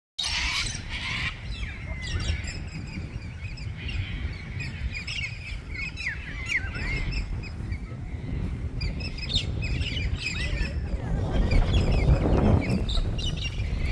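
Several small birds chirping and twittering in short, quick calls, over a low rumbling noise that grows stronger near the end.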